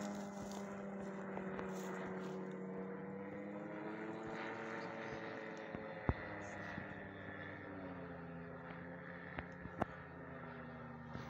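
Engine and propeller of a fixed-wing reconnaissance drone droning overhead, a steady hum whose pitch wavers slowly and drops about eight seconds in. A few sharp clicks, the loudest about six and ten seconds in.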